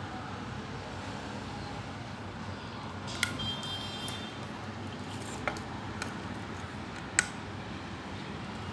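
A few sharp clicks and taps as a crocodile-clip lead is handled and fastened to a small plastic meter's terminal, the loudest one near the end, over a steady background hiss. A brief high-pitched tone sounds about three seconds in.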